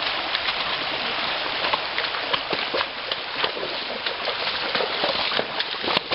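Shallow rocky creek rushing steadily, with a horse's hooves knocking on stones and splashing as it wades into the water, heard as many short, irregular clacks over the water noise.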